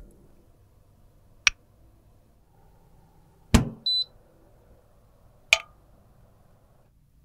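A single short electronic beep from the control panel of a Babycolor sterilizer cabinet, coming just after a hard thud. Sharp clicks come about a second and a half in and again near the end.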